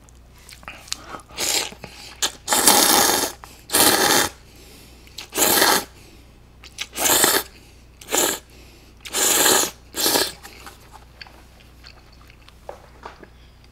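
Cold buckwheat noodles in broth (mul-naengmyeon) being slurped from a bowl: about eight loud slurps in quick succession, then quieter chewing near the end.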